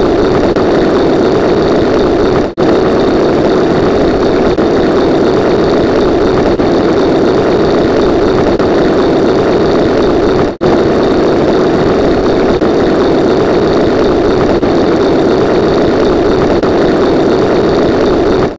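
A steady, loud engine-like drone, cut off briefly twice, about two and a half seconds in and about ten and a half seconds in, then starting straight up again as if looped.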